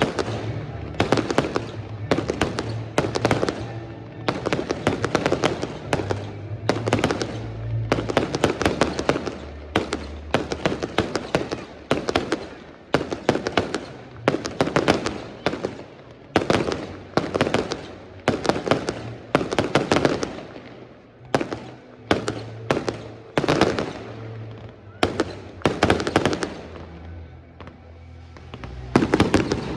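Fireworks display going off in a rapid barrage: clusters of sharp bangs and crackling reports, several a second, with brief lulls.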